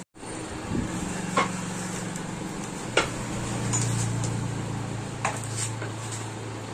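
A steady low machine hum that shifts to a lower, stronger tone about three seconds in, with a few light clicks and knocks over it.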